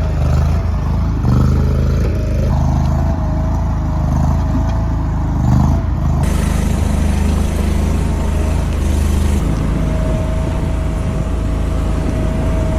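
An engine runs steadily under load, with a thin steady whine over it. The sound shifts abruptly about six seconds in and again about three seconds later.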